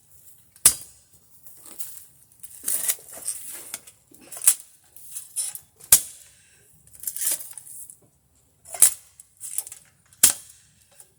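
Steel hand-digging tool striking hard ground in a footer hole: a sharp clanking blow about every one and a half seconds, some followed by a short scrape of soil and stone.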